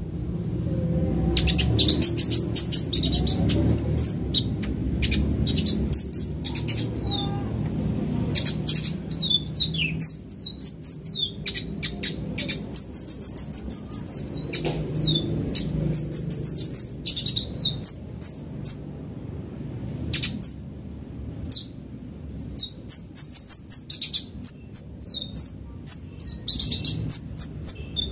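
Caged ruby-cheeked sunbird (kolibri ninja) singing a fast, high-pitched song of rapid chirps, sweeps and trills in bursts, with a short pause about two-thirds of the way through.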